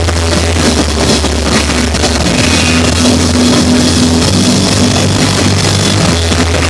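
Rock band playing live, loud, with bass and drums under the full band.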